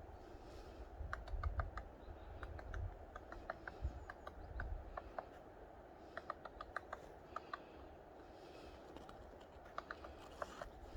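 Irregular light clicks and taps, some in quick clusters, from small hard objects being handled, over a low rumble.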